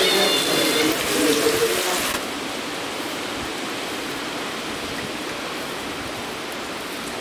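Heavy rain falling steadily as an even rush. In the first two seconds a pitched call or voice sounds over it, and about two seconds in the sound abruptly turns duller and lower.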